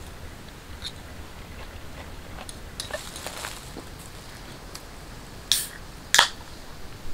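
A metal camping mug being handled: scattered faint clicks and taps, then two sharp clinks less than a second apart near the end.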